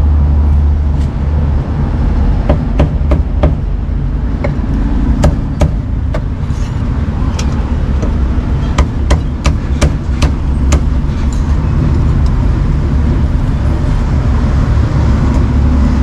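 A cleaver chopping roasted meat on a thick round wooden chopping block: a run of sharp, irregular knocks that thin out after about eleven seconds, over a steady low rumble.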